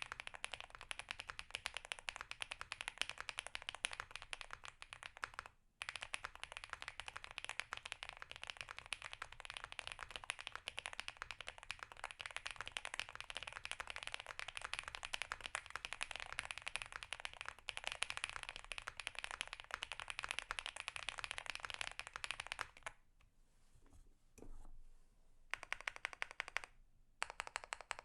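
Fast typing on a custom mechanical keyboard with lubed Gateron Cream Soda linear switches on an FR4 plate, fully foamed, with PBT keycaps: a dense, steady run of keystrokes. There is a brief break about six seconds in, and a pause of a couple of seconds near the end before the typing picks up again.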